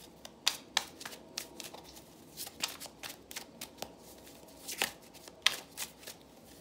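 Tarot deck being shuffled by hand: a run of quick, irregular card snaps and slaps, the sharpest about half a second in and again around five seconds.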